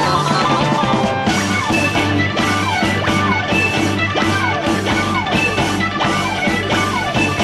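Instrumental progressive rock music with a steady pulsing bass line and repeated quick downward-sliding melodic runs.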